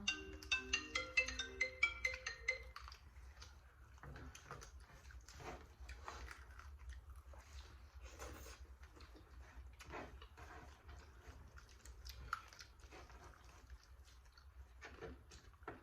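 A short bright tune of quick notes plays and stops about two and a half seconds in. After that come people eating: scattered crunches, bites and chewing, most likely from fried chicken, over a faint low hum.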